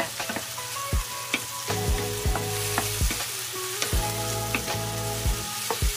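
Pork and tomatoes sizzling in a pan as they are stirred, with a utensil knocking against the pan again and again.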